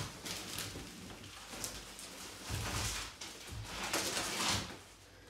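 Plastic bubble wrap rustling and crinkling in several bursts as a wrapped racing bucket seat is handled and lifted out of a cardboard box, with a few low knocks.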